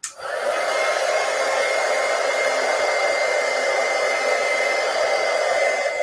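Handheld blow dryer switched on and running steadily, a rush of air with a thin steady whine, drying wet chalk paste on a painted wooden panel.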